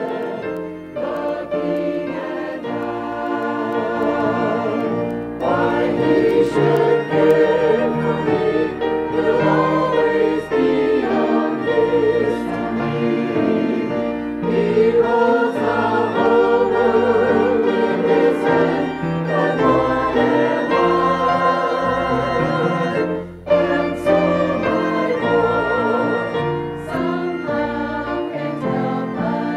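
A small mixed church choir of men and women singing a hymn together, with held notes that waver in pitch and a few short breaths between phrases.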